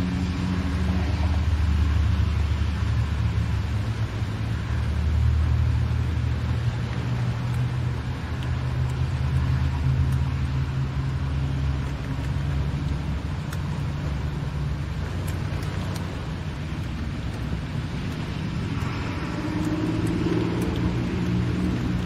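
Steady low engine and road drone heard from inside a car's cabin while driving in rain, over an even hiss of rain and wet tyres, swelling briefly near the end.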